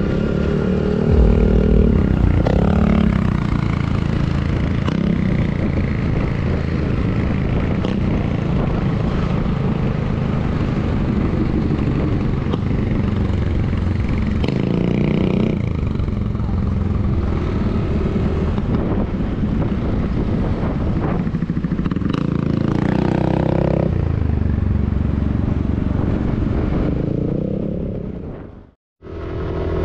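Motorcycle engine running under way, mixed with wind noise, its pitch rising and falling with the throttle. The sound cuts out briefly near the end.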